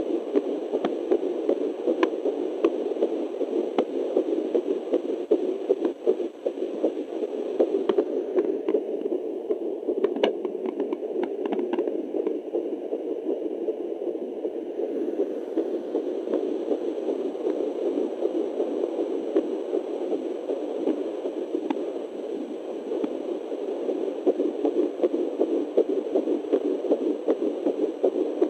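Fetal doppler output: a steady whooshing static that wavers quickly in level as the probe picks up a fetal heartbeat at 9 weeks. There are scattered clicks, mostly about ten to twelve seconds in.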